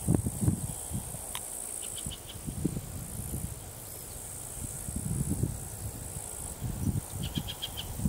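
Steady high-pitched buzz of insects stridulating, with two short clicking trills, about two seconds in and near the end. Irregular low rumbling on the microphone is the loudest sound.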